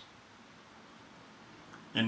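Faint, steady room hiss in a short pause between sentences of a man's speech, which trails off at the start and resumes at the very end.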